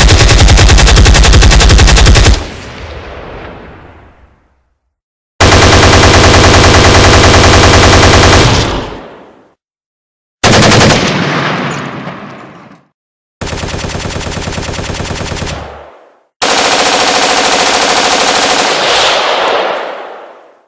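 Automatic machine-gun fire in five separate bursts of rapid shots, each two to four seconds long, divided by short silent gaps. Each burst cuts off into a fading echo. The fourth burst is quieter than the rest, and the last runs longest.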